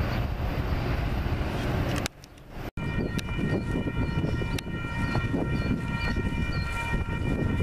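Wind rumbling on the microphone. After a brief dropout about two seconds in, a distant Metra locomotive horn sounds a steady multi-note chord for several seconds, with a faint bell ringing about twice a second.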